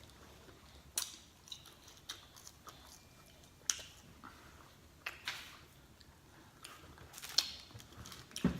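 A person chewing and eating close to the microphone, with a few short, sharp mouth smacks and clicks scattered through the quiet.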